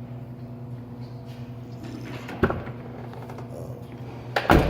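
A steady low hum, with a knock about two and a half seconds in and a louder thump near the end.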